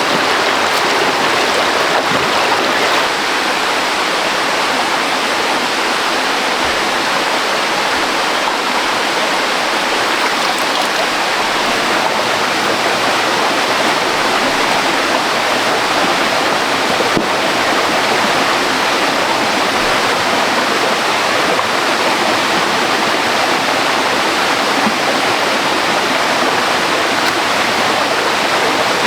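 Fast water rushing over rocks in a waterfall stream, a steady, unbroken rush.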